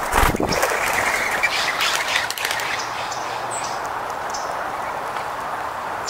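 A dull thump right at the start, then a steady outdoor hiss with a few short, high chirps from small songbirds feeding.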